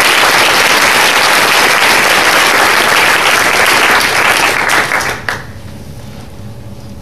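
Conference audience applauding, a dense, steady clapping that thins out and stops abruptly about five seconds in, leaving a quiet hall hum.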